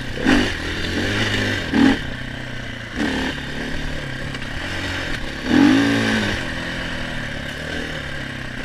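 KTM 500 EXC's single-cylinder four-stroke enduro engine running, with short throttle blips, the biggest about five and a half seconds in.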